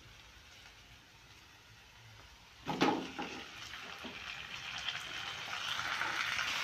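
Chopped tomatoes going into hot oil and browned onions in a non-stick kadai: a sudden thump nearly three seconds in, a few smaller knocks, then a frying sizzle that builds steadily.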